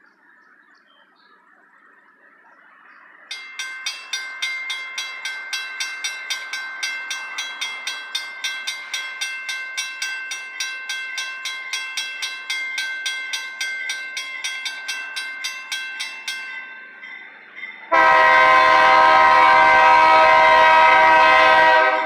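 Railroad crossing bell ringing fast and evenly, about three strikes a second, while the crossing gates lower; it stops a few seconds before the horn. Then the horn of an approaching GE B23-7 diesel locomotive sounds one long, loud chord of about four seconds.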